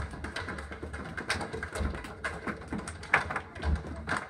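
Irregular sharp taps and stomps from a percussive stage dance performance playing on a classroom screen, over a low steady hum.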